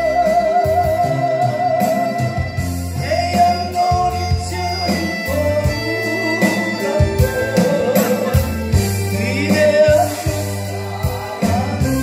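A woman singing a Korean gospel hymn into a microphone over instrumental accompaniment with a steady bass and beat, holding a long note with vibrato at the start.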